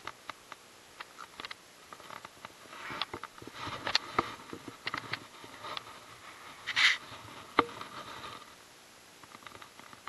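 Close handling noise: rustling and scuffing with a string of sharp clicks and taps, louder scuffs about three to four seconds in and again near seven seconds, as a freshly caught bass is handled close to a body-worn camera.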